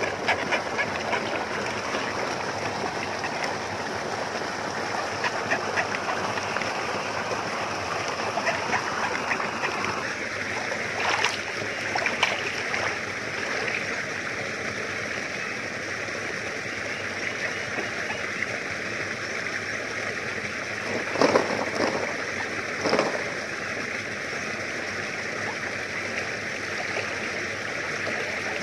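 Steady rush of flowing water, with a few short splashes about eleven seconds in and a louder cluster about three-quarters of the way through.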